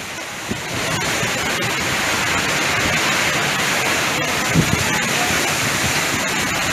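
Steady rushing noise of heavy rain pouring down in a storm.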